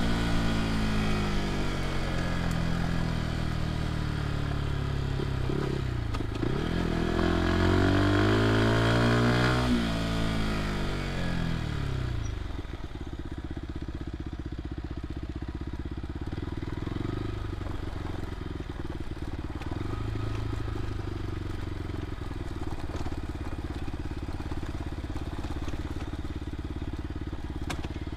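Fantic Caballero 125's single-cylinder four-stroke engine rising and falling in revs for about the first ten seconds, then settling to a lower, steady run at low speed, with a light clatter of the bike rolling over a rough dirt track.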